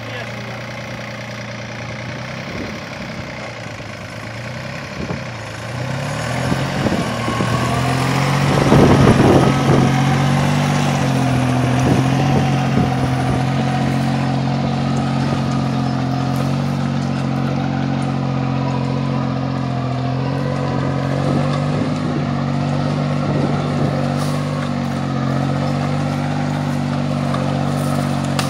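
Taral VST 818 compact tractor's diesel engine running quietly, then speeding up about seven seconds in and running steadily under load while it pulls a mouldboard plough through the soil.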